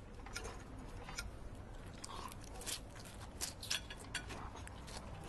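Knife and fork clicking and scraping against a plate as steak is cut, with chewing: a scatter of short, light clicks over a low room hum.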